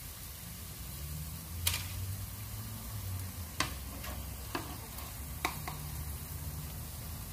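Hash browns sizzling in shallow oil in a non-stick frying pan, with a steady hiss, while metal tongs lift one out. The tongs click sharply against the pan about six times.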